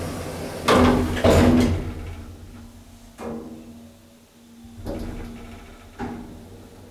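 Sliding doors of a 1996 Heinzerling hydraulic elevator closing, with two loud knocks about a second in as they shut. A steady low hum from the elevator follows, broken by a few single knocks.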